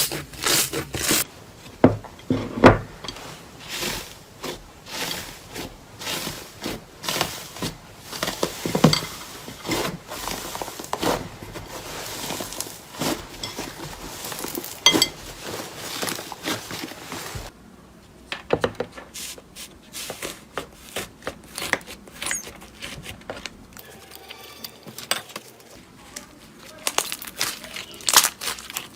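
Slime being squeezed, poked and stretched by hand, giving dense, irregular runs of small crackling and popping clicks.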